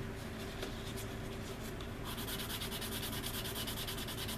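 Sanding stick rubbed back and forth on a resin model-aircraft wing in quick, short strokes. The strokes become faster and more even about two seconds in.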